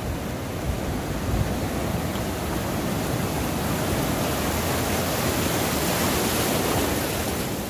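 Light ocean surf breaking and washing in as foam: a steady rush of water that swells a little in the second half and eases near the end.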